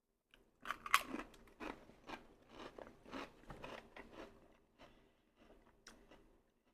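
Close-miked crunchy chewing: a person biting into and chewing crisp food, with a steady run of sharp crackles, loudest about a second in and thinning out toward the end.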